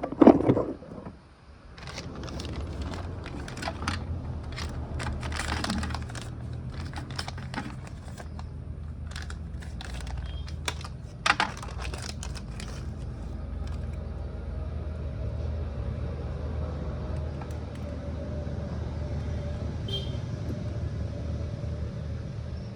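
Hero Glamour motorcycle's single-cylinder engine starts running and runs steadily after a new timing chain has been fitted. Irregular sharp clicks over the first half, then only the steady running.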